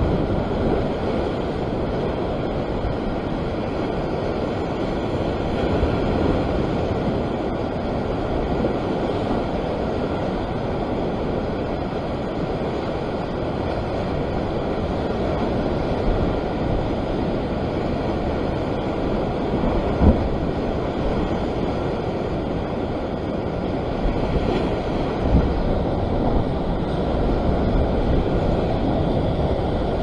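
Ocean surf breaking and washing over a rock ledge, mixed with steady wind rumble on the microphone. One sharp knock about two-thirds of the way through.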